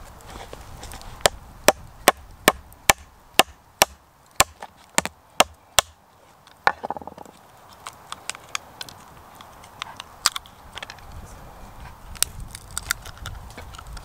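A run of about a dozen sharp knocks on wood, evenly spaced at two to three a second, then scattered lighter clicks and cracks.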